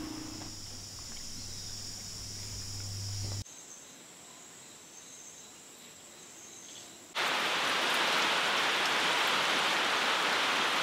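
Steady heavy rain, starting suddenly about seven seconds in and then the loudest sound. Before it there are only faint high insect calls over a low hum.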